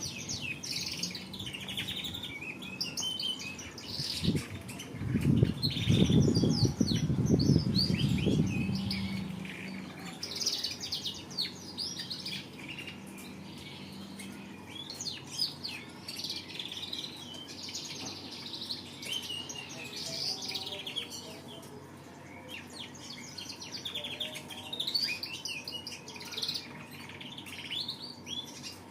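Domestic canary singing a long, almost unbroken song of rapid chirps and trills. A low rumble runs underneath from about four to nine seconds in.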